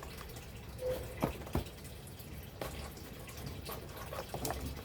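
A few light, irregular clicks and taps, with no steady sound under them.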